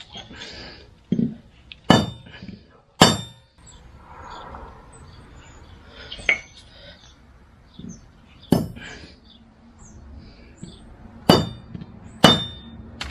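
Metal hand tools clicking and clinking while wires are prepared, about seven sharp strikes at irregular spacing, each with a brief metallic ring.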